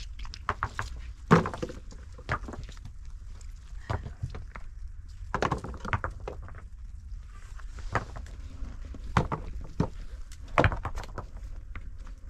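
Irregular knocks and thumps, the loudest about a second in, over a steady low rumble.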